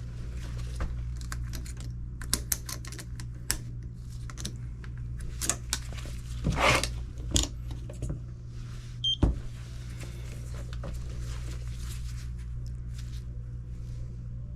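Scattered clicks and knocks of tools and parts being handled during HVAC repair work, over a steady low hum. A cluster of louder rattles comes about halfway through, and a sharp knock a couple of seconds later.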